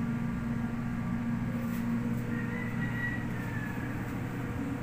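Ship's engine-room machinery running with a steady low hum; a faint high whine comes in about halfway through and fades after a second or so.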